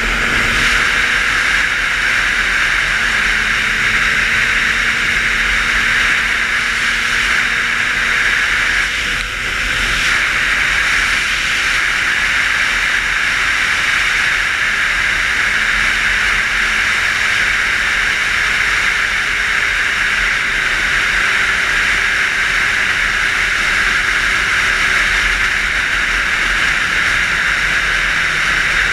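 Wind rushing steadily over a helmet-mounted action camera while riding a 600 cc motorcycle at cruising speed, with the engine's hum faint underneath, its pitch drifting slowly.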